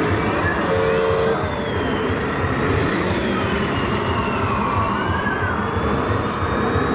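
Busy exhibition-hall din with a faint siren-like tone slowly rising and falling over it, and a short horn-like note about a second in.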